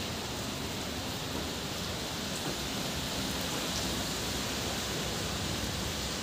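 Steady rain falling on wet paving and puddles: an even hiss that does not let up.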